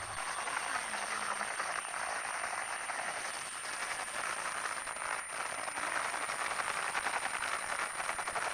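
Steady hissing, rasping noise of a mud-covered toy helicopter being cleaned, with a thin, high steady whine over it.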